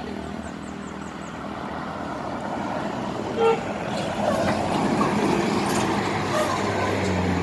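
Road traffic passing, with a short, single horn toot about three and a half seconds in and a low engine drone building near the end.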